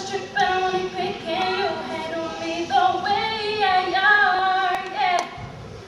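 A woman singing, holding long notes that bend in pitch, with no clear beat behind it. A couple of light taps near the end.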